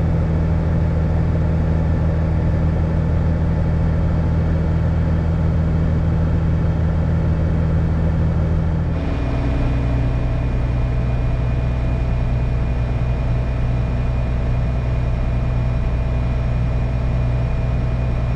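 Heavy diesel engine running steadily under load. About halfway through, the sound switches abruptly to a different engine with a lower, steady drone.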